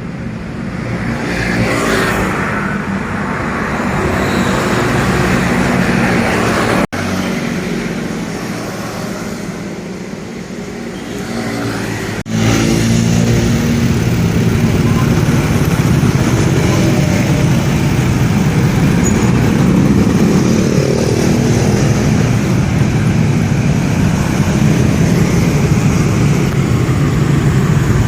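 Road traffic noise: motor vehicles running past, with a steady low engine hum. The sound drops out for an instant twice, about seven and twelve seconds in.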